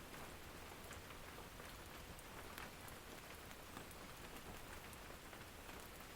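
Rain falling on a small cabin, heard from inside: a faint steady patter with scattered sharp drip ticks.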